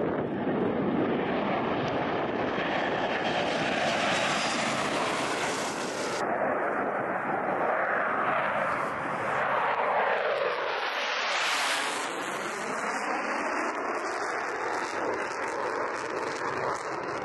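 Jet engine noise from a Superjet regional airliner fitted with PD-8 turbofans running at high power on the runway. It is a steady rush with an abrupt change in tone about six seconds in, and a sweeping fall and rise in pitch a little after halfway.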